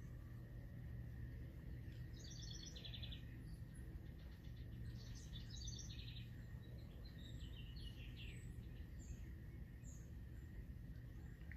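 Faint outdoor birdsong: a songbird gives a few short phrases of quick repeated high notes, about two, five and eight seconds in, over a low steady background rumble.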